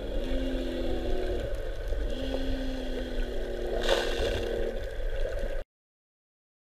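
Shipboard machinery running with a steady low rumble and a droning tone that dips in pitch twice and comes back up. There is a short hiss about four seconds in, and the sound stops abruptly a little past five seconds.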